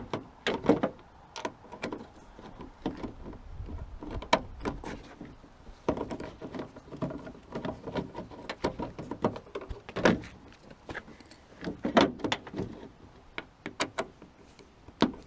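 Irregular clicks and knocks of a car door lock unit being worked into place inside the door by hand, with louder knocks about a second in and again near 10 and 12 seconds.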